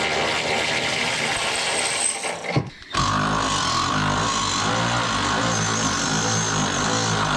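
Cordless impact wrench hammering on the car's K-member (subframe) bolts to break them loose; it stops for a moment about two and a half seconds in, then runs steadily again.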